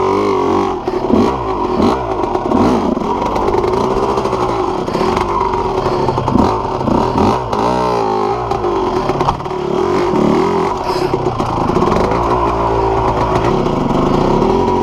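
Yamaha YZ250 two-stroke dirt bike engine being ridden hard, its pitch repeatedly rising and falling as the throttle is opened and closed.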